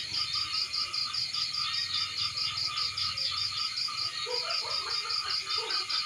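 A chorus of insects and frogs calling from a rice field. The loudest part is a high trill that pulses rapidly and evenly, with a lower pulsing chorus beneath it. Short scattered calls join in from about four seconds in.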